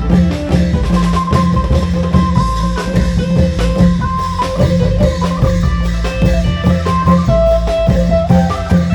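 Isan folk music: a plucked phin lute playing a quick melody over a steady drone, with klong yao long drums and bass keeping a driving beat.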